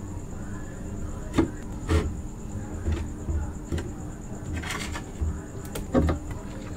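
Close-up handling of raw aloe vera leaf: a few sharp clicks and knocks, with a brief crackle about halfway through, over a low steady hum.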